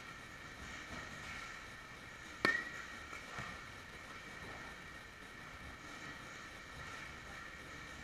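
A softball bat striking a pitched ball once about two and a half seconds in: a sharp crack with a brief ring after it, over a steady hum.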